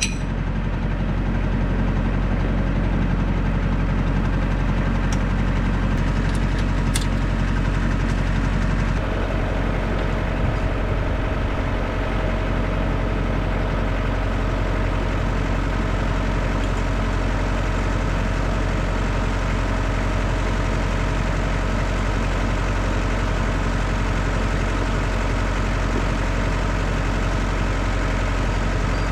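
Tractor engine running steadily, with a slight change in its note about nine seconds in.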